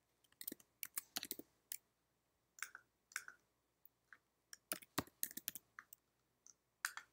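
Faint computer keyboard typing and mouse clicks: quiet key clicks in short, irregular runs.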